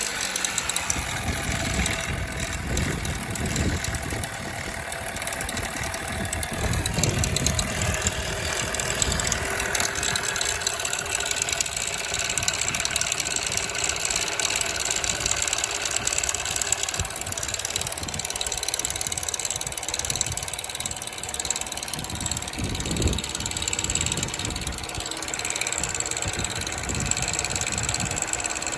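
2007 Chevrolet Cobalt's 2.2 L Ecotec four-cylinder engine running steadily just after start-up, with the rattle of its timing chain.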